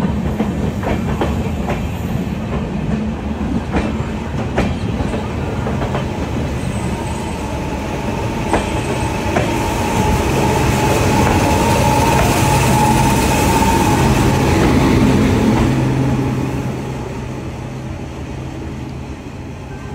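Amrit Bharat Express coaches and their WAP-5 electric locomotive rolling slowly past on the adjacent track. The wheels click over the rail joints over a steady rumble. A thin steady whine comes through in the middle, the sound swells as the locomotive goes by, then eases off near the end.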